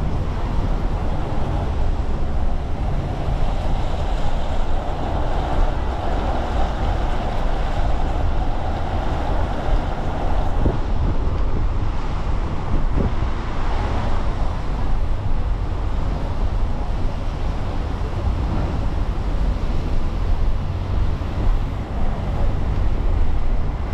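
Steady wind rumble buffeting the microphone over a constant wash of rain and traffic on wet streets.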